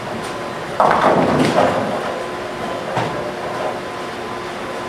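Bowling alley din of balls and pins, with a sudden loud clatter about a second in that dies away over a second, like pins being struck on a lane. A short sharp knock comes near three seconds.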